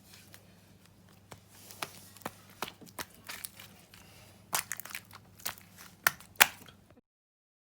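Slime being squished and poked in the hands, making irregular sticky clicks and crackling pops, the sharpest snaps near the end, over a faint steady electrical hum; the sound cuts off abruptly about seven seconds in.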